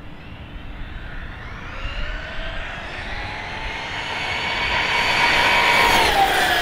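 ARRMA Kraton 6S RC monster truck with a Leopard 4082 2000 kV brushless motor at full throttle: the motor and drivetrain whine rises in pitch and grows louder as it approaches, then drops in pitch as it passes close by near the end.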